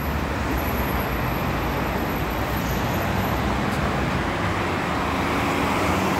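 Road traffic on a busy city street: cars driving past in a steady rumble of engines and tyres.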